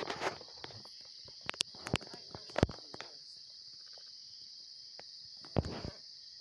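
Steady high-pitched chorus of insects, with scattered sharp clicks and a scuffing rustle near the end.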